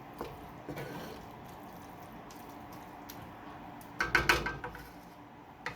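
Cooking utensil against a pan, with a few light clicks early on and then, about four seconds in, a brief loud clatter with a metallic ring.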